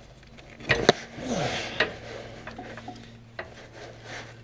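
Hands wrestling a spring-tensioned drive belt onto the PTO clutch pulley of a zero-turn mower: a few sharp metal clicks and knocks, the loudest about a second in, and a short scrape of belt on pulley just after it.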